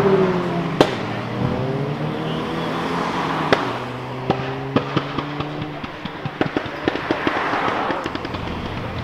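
A car engine revving, then running steadily while its exhaust gives off sharp pops and bangs. There is a loud single crack about a second in, another about three and a half seconds in, and then a rapid string of crackling pops.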